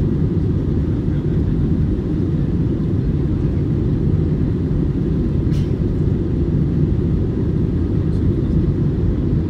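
Steady low cabin roar inside an Airbus A320 in flight: engine and airflow noise heard from a window seat. There is a faint click about halfway through.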